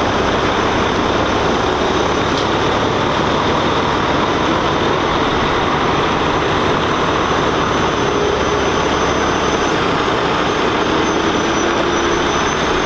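Diesel engines of parked semi trucks idling, a loud, steady, unchanging running sound.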